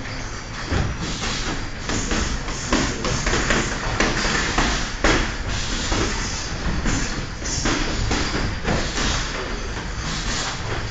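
Boxing sparring: irregular thuds and slaps of gloves landing and feet moving on the ring canvas, several a second at uneven spacing, over a steady low rumble.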